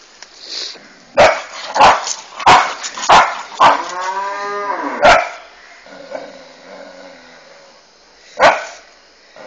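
Dog barking: five loud barks in quick succession, a drawn-out whining call, another bark, then a single bark near the end.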